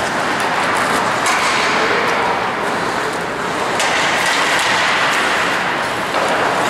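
Ice hockey play: a steady noise of skates scraping and carving the ice, with scattered sharp clacks of sticks and puck.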